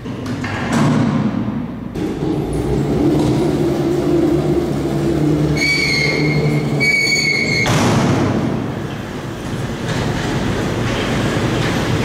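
Power-operated hoistway door and car gate of a Dover hydraulic freight elevator opening at a landing. A steady motor hum runs for several seconds, two short high beeps sound about six and seven seconds in, and then a loud rattling clatter starts as the mesh gate runs up.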